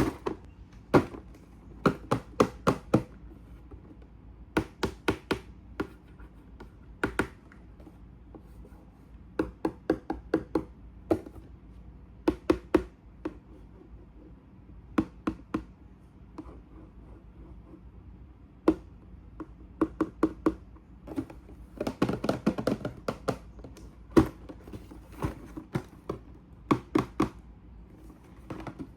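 Hands handling a plastic snap-fit model kit and its packaging: short clusters of sharp plastic taps and clicks, a few at a time, with pauses between and a busier patch of handling about three quarters of the way through.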